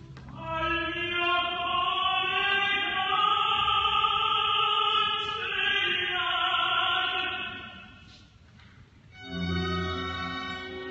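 Operatic tenor singing with orchestra: one long, high note held for about seven seconds that ends around eight seconds in. About a second later the orchestra sounds a short loud chord.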